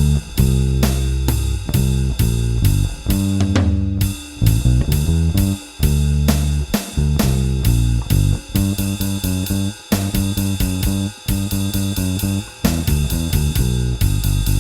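Electric bass with a Seymour Duncan Designed pickup, run through a Studio Bass compressor, playing a blues-rock bass line in steady notes over a drum kit keeping an even beat.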